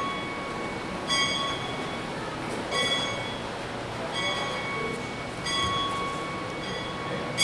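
Steam locomotive bell on ACL Baldwin K-14 4-6-0 #250, rung slowly by hand. Each stroke comes about every one and a half seconds and rings on into the next.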